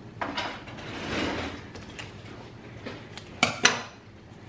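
A small sealed charm package being pried and torn open by hand: rustling and crinkling of its wrapping, then two sharp clicks about three and a half seconds in.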